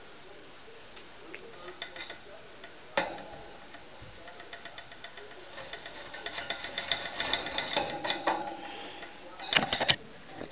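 Light clicks and rattles from a wire rat cage and its plastic shelf. There is a sharp click about three seconds in, then a busier run of clicking and rattling as a hand reaches into the cage, and a short loud cluster of knocks near the end.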